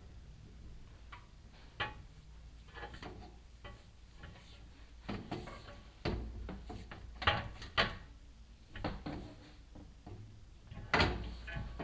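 Chimney inspection camera and its push rod knocking and scraping against the flue walls as it is lowered down the chimney, in irregular knocks and scrapes over a low steady hum, the sharpest knocks coming about six to eight seconds in and again near the end.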